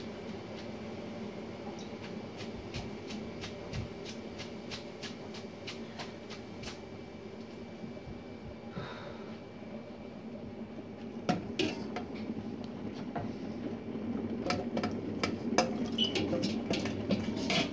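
Kitchen clatter over a steady hum: a run of light, evenly spaced clicks for the first several seconds, then scattered louder knocks and taps as a glass jar and utensils are handled.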